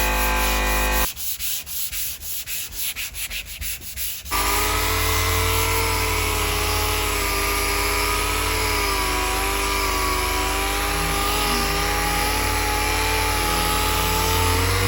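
Power sander running against primer on a car body panel. About a second in it gives way to roughly three seconds of quieter, irregular rubbing strokes, then runs again steadily, its pitch wavering as it is pressed and moved.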